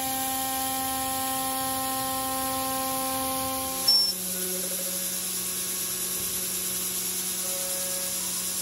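CNC router spindle milling an aluminium plate with a small end mill. It makes a steady whine of several tones over the hiss of the mist coolant. About four seconds in there is a brief sharp sound, and the tones shift to a different, lower set.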